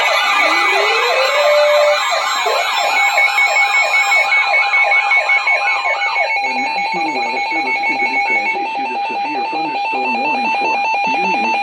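Electronic sirens. One tone rises at the start, then fast up-and-down yelping sweeps about three times a second. About six seconds in, the sweeps give way to a steady, rapidly pulsing alarm tone.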